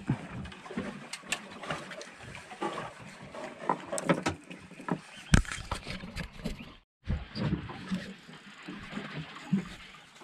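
Irregular knocks and clicks aboard a small fishing boat, with faint indistinct voices. The sound drops out completely for a moment about seven seconds in.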